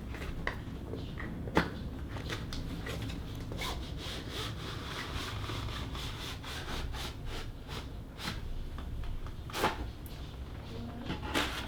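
Cardboard sleeve being slid off a keyboard box and the packaging handled: a continuous rubbing of cardboard on cardboard, with scattered light taps and a few sharper knocks, one about a second and a half in and others near the end.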